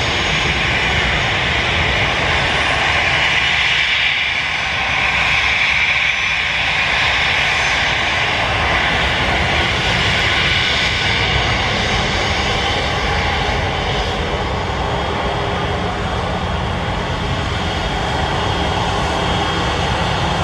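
Jet airliner's engines running, a loud steady rush of noise.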